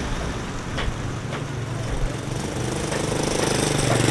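An engine running steadily, growing louder about three seconds in.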